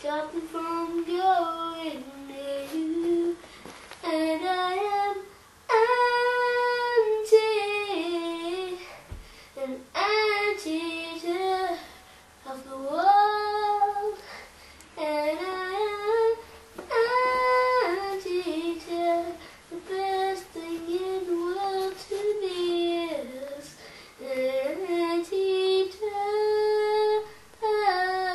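A child singing solo without accompaniment: a wandering melody in short phrases, with brief pauses for breath between them.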